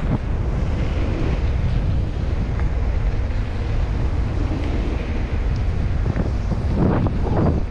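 Wind buffeting the microphone while on the move, a steady low rumble with hiss, with a brief faint voice near the end.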